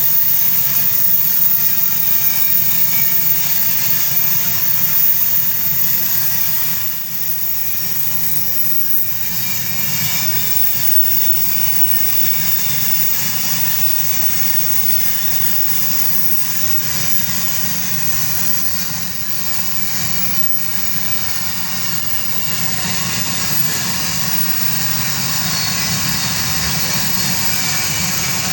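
Iron-ore freight train running past at close range: a steady mix of low engine and rolling noise with a high hiss from the wheels on the rails, easing slightly after several seconds and then holding even.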